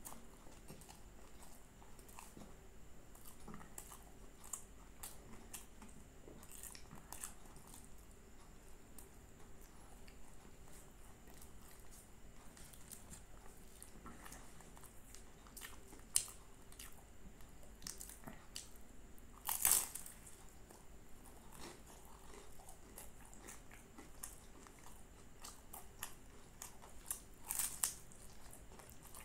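Close-up crunching and chewing of flaky, crisp puff-pastry aloo patties: scattered small crackles of the pastry between bites, with a loud crunching bite about two-thirds of the way through and a cluster of crunches near the end.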